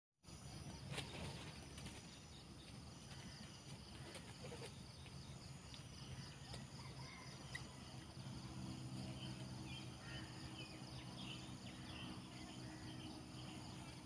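Faint outdoor ambience: a steady high insect drone over a low rumble, with a few faint bird chirps and a low steady hum coming in about eight seconds in.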